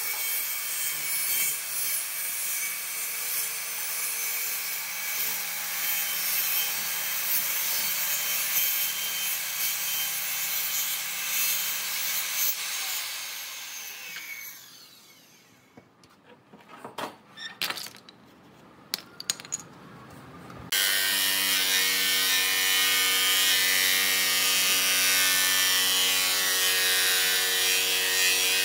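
Maktec circular saw running and cutting across a row of wooden slats, winding down about halfway through. A few light clicks and knocks follow. Then an electric jigsaw starts abruptly and runs steadily, cutting into a wooden slat lattice.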